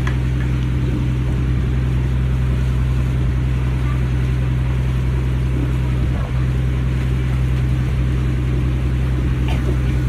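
Boat engine running steadily: a constant low drone with an even hum.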